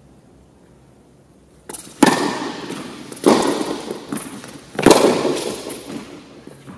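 Tennis ball struck hard by a racket on a serve about two seconds in, just after a lighter tap, then two more sharp ball strikes over the next few seconds, each ringing out in the echo of a large indoor tennis hall.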